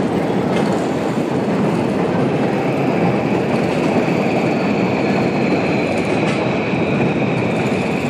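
Train passing on rail tracks: a steady, loud rumble with a faint high whine that comes in about three seconds in.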